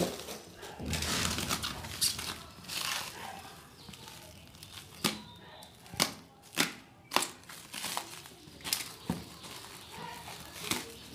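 Clear plastic stretch-wrap film crinkling and tearing as it is pulled and cut off a cardboard box. A stretch of rustling crinkle comes first, then a string of sharp snaps and ticks as the film pulls and tears.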